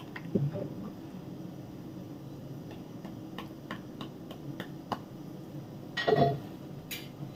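Wooden spoon knocking lightly against a frying pan while stirring a thick flour and coconut-milk batter, a run of quick light knocks about three a second. Near the end a louder clatter of utensils against a glass bowl.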